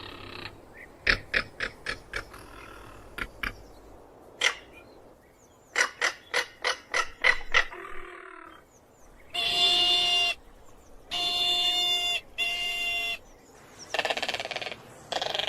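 Crested caracara calling: runs of rapid dry clicking rattles, then three separate calls about a second long each, followed by further calls near the end.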